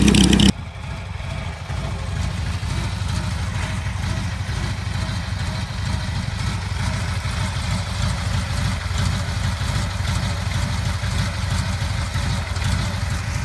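Motorcycle engine idling steadily with an even low beat, fading away near the end. A louder sound with a voice cuts off abruptly about half a second in.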